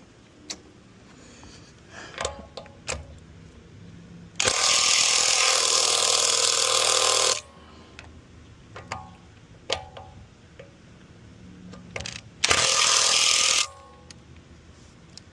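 An impact wrench hammering at lug nuts in two runs, one about three seconds long and a shorter one near the end, with scattered metallic clicks and knocks between them. The lug nuts are ones the owner says were over-tightened.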